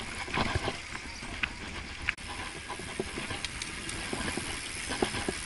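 Riding noise picked up by a camera on a slowly moving bicycle: a steady rush of air and road noise with many scattered clicks and knocks from the bike, and a few brief high tones.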